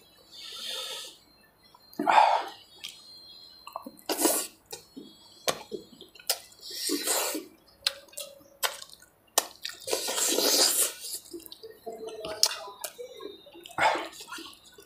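Close-miked wet eating sounds: irregular chewing, lip-smacking and slurping bursts with sharp mouth clicks, from someone eating fish curry by hand. The longest slurping stretch comes about ten seconds in.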